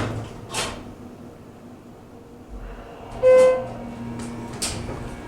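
Elevator clunks near the start, then, about three seconds in, one short electronic beep (the loudest sound), followed by a low steady hum of the running elevator.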